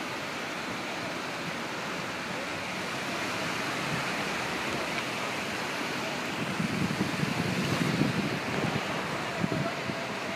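Steady wash of choppy sea and waves against a concrete harbour breakwater, with wind. A few seconds past the middle, low rumbling thumps of wind or handling on the phone's microphone come over it.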